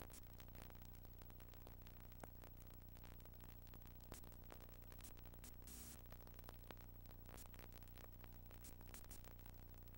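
Near silence: faint hiss and a steady low hum from a blank stretch of recording, with scattered faint clicks.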